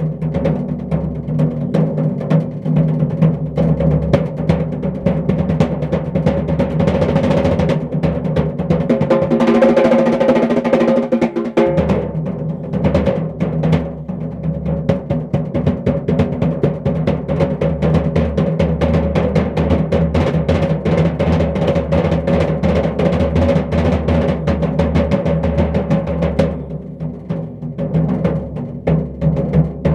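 Fast, continuous drum roll played with bare hands on a floor tom and a snare drum, a dense stream of strokes over the drums' ringing low tones. It swells loudest about ten seconds in and drops off briefly a few seconds before the end.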